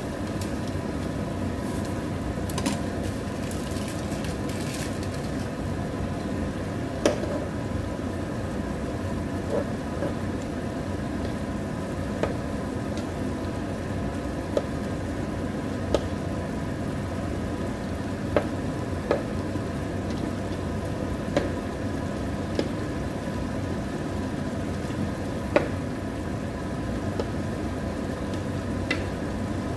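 Chicken, potatoes and carrots sizzling in sauce in a frying pan, with a dozen or so sharp clicks of a spatula against the pan as it is stirred, over a steady hum.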